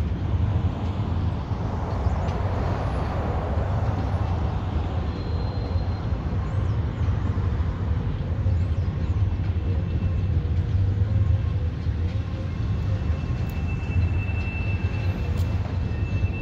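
Freight train cars of an intermodal train with auto racks rolling past: a steady, even rumble of wheels on rail, with a faint high thin tone coming in near the end.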